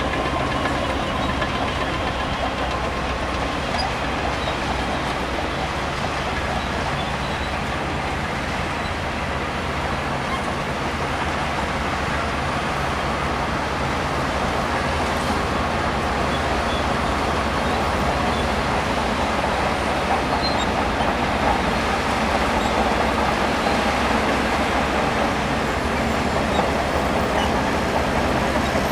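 Shantui DH17C2 crawler bulldozer working: its diesel engine runs steadily under a constant spread of clattering track and machine noise.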